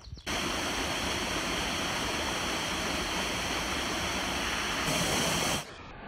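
Waterfall pouring down a rock face: a steady, dense rush of falling water that starts suddenly just after the beginning and cuts off about five and a half seconds in.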